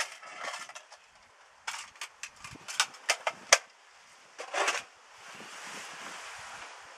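Tools and small items being handled and put back on a workshop shelf: a run of sharp clicks and knocks, the loudest about three and a half seconds in, then a short scrape and a soft steady rustle.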